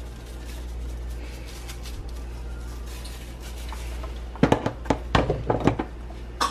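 Kitchen handling noise over a steady low hum: about four and a half seconds in, a quick run of about eight sharp taps and knocks, as seasoning is shaken from a shaker and worked onto a raw turkey in a foil roasting pan.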